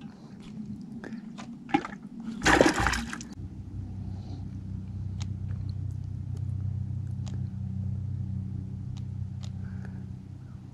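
A short rush of water about two and a half seconds in, then a steady low motor hum with a few faint clicks.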